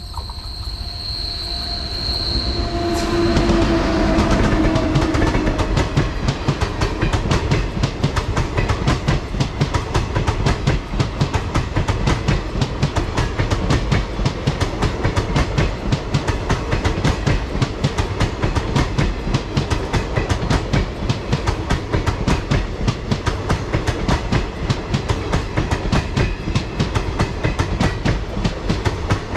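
Express train hauled by a WAP-7 electric locomotive passing close at speed. A steady high tone is heard on the approach, then the sound grows loud about three seconds in as the train arrives. After that comes a long, even, rhythmic clatter of the coaches' wheels over the rail joints.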